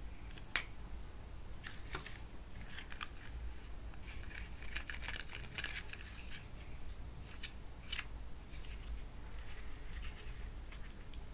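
Hard plastic toy food pieces clicking and tapping as they are handled and set down. About four seconds in there is a couple of seconds of dense scratchy rustling as a toy sandwich is handled.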